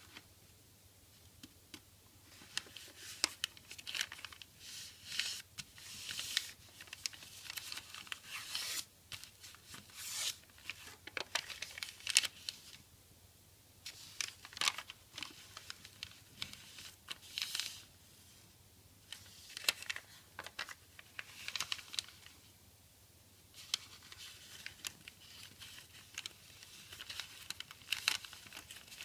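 Origami paper being folded and creased by hand, crinkling and rustling in irregular bursts with sharp crackles and short pauses between folds.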